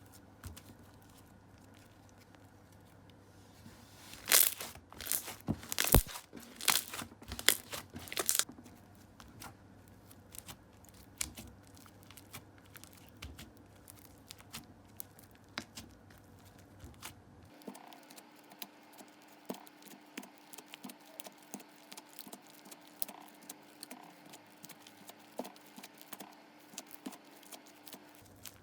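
Hands squeezing and stretching clear slime, giving wet crackling, popping and tearing sounds, loudest in a flurry of sharp crackles a few seconds in. After an edit about two-thirds of the way through, softer scattered pops and clicks continue over a faint steady hum.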